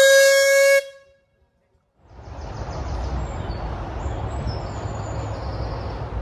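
A steam narrowboat's whistle blows one loud, steady note that bends up slightly as it starts and cuts off about a second in. After a short silence, a steady low outdoor rumble follows with faint high chirping.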